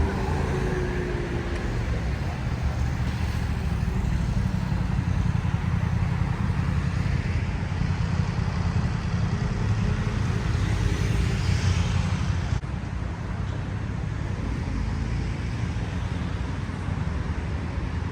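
City street traffic: cars passing with a steady low rumble, a little louder through the middle and dropping off suddenly about two-thirds of the way through.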